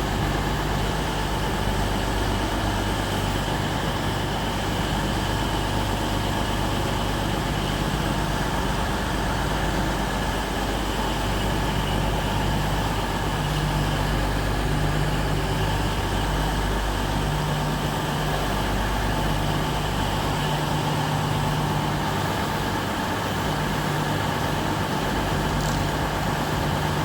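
Class 66 diesel freight locomotive running steadily, a continuous low engine hum and rumble with no rise or fall.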